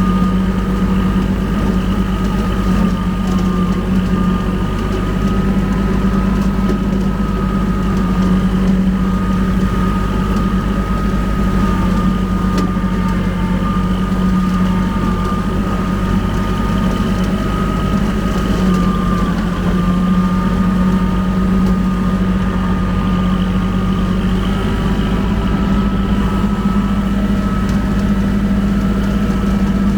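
Kubota L2501 compact tractor's three-cylinder diesel engine running steadily at working revs while driving a rotary brush mower, with a steady high whine over the engine note.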